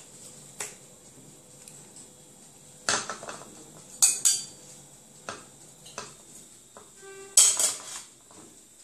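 Metal spatula scraping and clinking against a baking tray and a glass serving plate as baked chicken pieces are lifted onto the plate. It comes in several short clatters, the loudest about four seconds in and again near the end.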